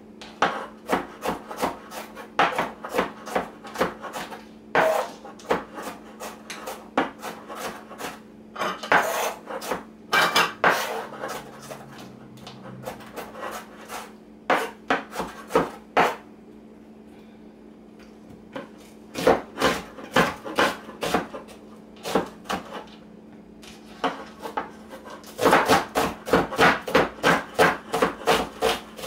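Knife chopping vegetables on a cutting board: runs of quick, sharp taps with short pauses, the fastest run, about four chops a second, near the end.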